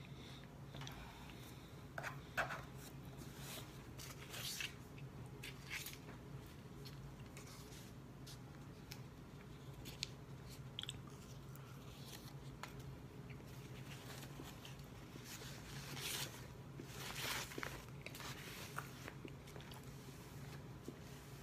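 Faint mouth sounds of a person chewing a bite-sized cheesecake, with scattered small smacks and clicks of eating and handling, over a steady low hum.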